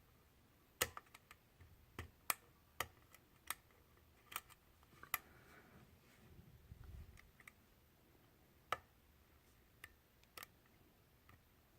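Faint, sharp metallic clicks at irregular intervals, about a dozen, from hook picks and a tension tool working the pin stack of a euro cylinder lock during picking.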